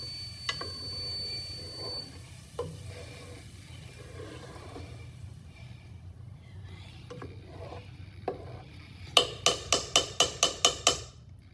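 A spoon stirring in a cooking pot, with a few scattered knocks, then near the end a quick run of about ten sharp clacks, roughly five a second.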